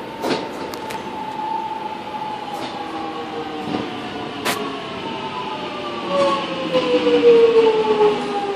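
X'Trapolis electric suburban train pulling into the platform and slowing, its electric whine falling steadily in pitch and growing louder near the end. A few sharp clicks come in the first few seconds.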